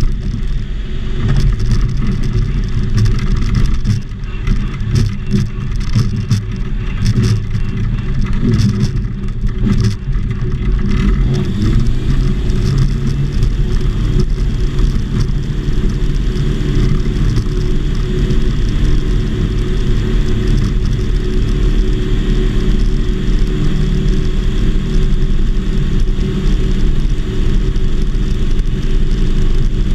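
Light homebuilt aircraft's engine and propeller running steadily, a loud low drone heard from inside the cockpit. Irregular knocks and rattles come through during the first ten seconds or so.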